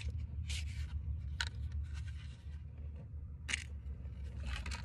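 Wooden matches struck against a matchbox: several short, sharp scrapes, over a steady low wind rumble on the microphone.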